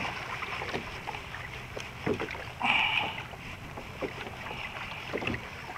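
Water lapping against a sea kayak's plastic hull, with wind on the microphone. A louder rush of noise comes about three seconds in, with a few faint knocks around it.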